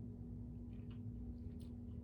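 Faint chewing sounds with a few soft wet mouth clicks from a person eating close to the microphone, over a steady low hum.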